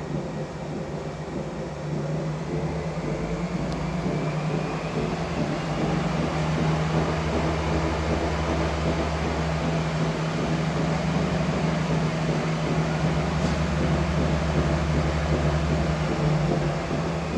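Cardiostrong TX90 treadmill running with a steady low droning hum ("Wummern"), the unexplained noise its owner is asking about. The deep drone swells about two seconds in and eases slightly near the end.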